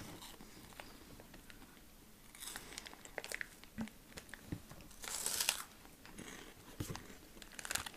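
Faint crinkling of a plastic snack wrapper, with crunching bites and chewing of a snack stick. The loudest crunch comes about five seconds in.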